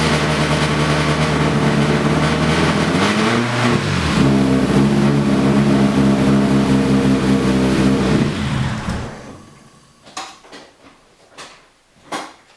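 Newly fitted car engine running just after catching, its speed rising about three or four seconds in, then dying away and stalling about nine seconds in; a few short knocks follow. The owner feels it running as if on three cylinders.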